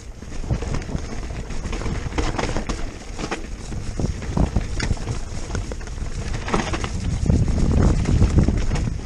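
Wind buffeting the microphone as a Giant Stance E+ electric mountain bike rides fast down a rough dirt trail, with the bike's rattles and knocks and its tyres on the dirt. The wind rumble grows louder near the end.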